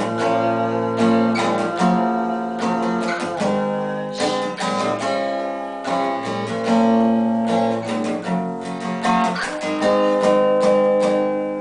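Acoustic guitar strummed in a steady rhythm, chords ringing between strokes, in an instrumental passage of a pop ballad.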